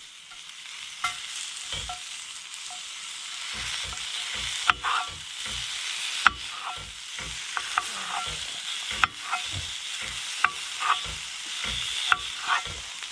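A dull kitchen knife chopping a pepper on a cutting board, in irregular sharp knocks, over a steady sizzle of food frying in a pan.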